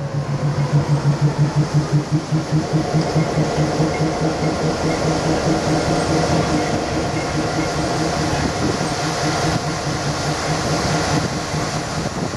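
FEPASA GE diesel locomotive D-6120 and a second diesel locomotive moving along the station tracks. The engines rumble and the wheels clatter rhythmically over rail joints, about three beats a second and loudest in the first few seconds, then settle into a steadier, slightly fainter rumble as the locomotives pull away.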